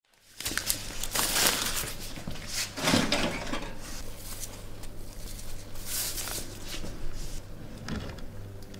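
Kitchen handling sounds: a bowl and utensils being moved about on a worktop, in a few noisy rustling swells over a low steady hum.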